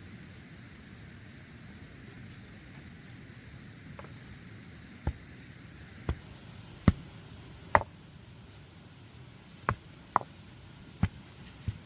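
Sharp knocks struck at irregular intervals, about one a second, beginning about halfway through, over a steady faint high-pitched tone.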